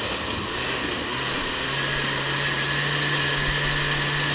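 Countertop blender motor running steadily, grinding a thick green salsa of tomatoes and chiles with no water added. Its whine settles into a steady pitch about a second and a half in.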